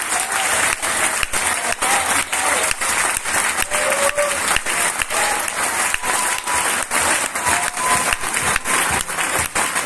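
Audience applauding steadily, dense clapping from many hands, with a few faint voices calling out over it.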